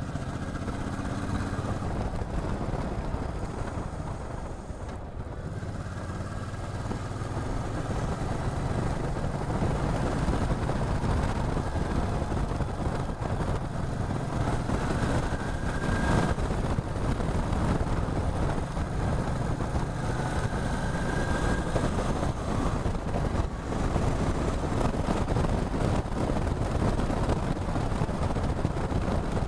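Motorcycle running under way, its engine note under steady wind and road noise, getting louder over the first several seconds.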